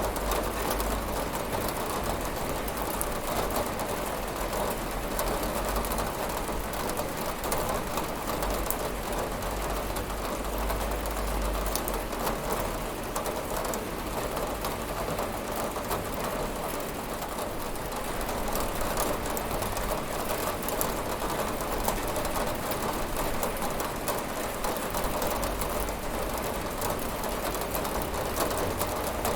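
Steady rain pattering on a window, an even hiss with a low rumble underneath that swells and fades.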